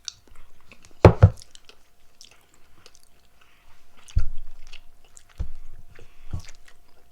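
Chewing of chocolate close to the microphone, with soft clicks and several dull knocks on the table; the loudest is a double knock about a second in, with single knocks around four, five and a half and six and a half seconds.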